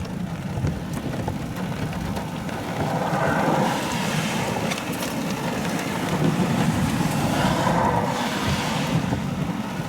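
Car driving, with steady road and engine rumble and a rushing noise that swells louder about three and a half seconds in and again near eight seconds.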